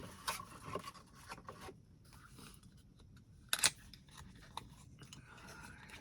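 Beauty-product packaging being handled and opened: light rustling and scraping with scattered small ticks, and one louder sharp click about three and a half seconds in.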